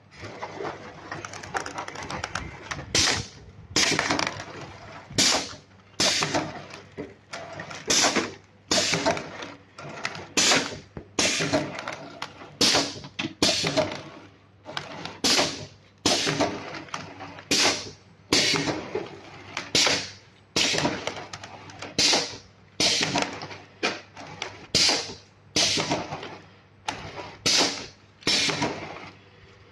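Automatic horizontal packaging machine on a conveyor line running through its cycle. It makes a sharp, noisy stroke about every second and a bit, each fading quickly, over a steady low machine hum.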